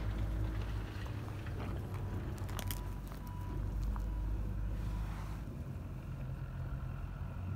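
Steady low outdoor rumble, with a few faint clicks about two and a half seconds in.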